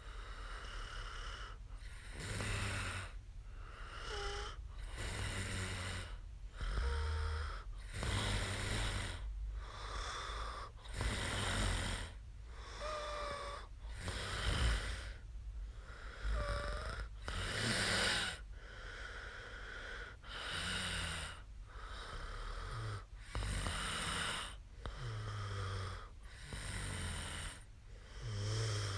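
A woman snoring in her sleep: regular, noisy breaths in and out, one after another. A faint short whistle rides on a few of them.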